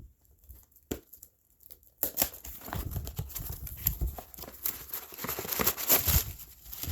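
A cardboard parcel being opened and unpacked: packing tape tearing and packaging rustling and crinkling, with small knocks as it is handled. It starts about two seconds in, after a single click.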